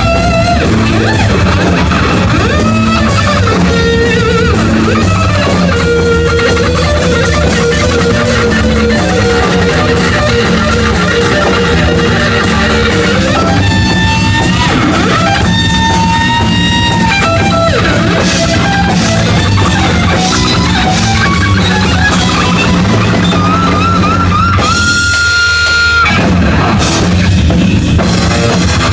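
Live heavy metal band playing loudly: electric guitar leads with long held notes over bass and drums. Near the end, a quick trill climbs into a long high guitar note while the bass and drums drop out for a moment, then the band comes back in.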